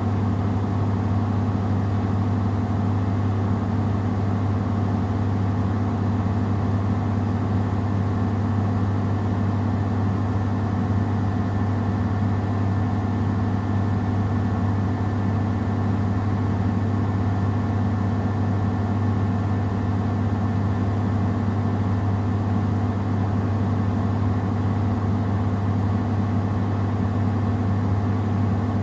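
Samsung WW70T4020EE front-loading washing machine spinning a load of clothes at a constant speed, a loud, steady, low motor hum with no rise or fall.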